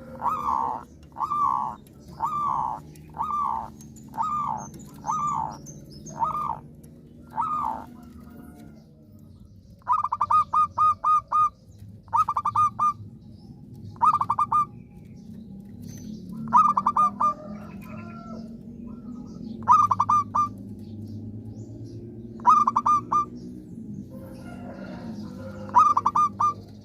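Zebra dove (perkutut) singing: first a run of about eight evenly spaced coos, then repeated short bursts of rapid staccato cooing notes about every two seconds.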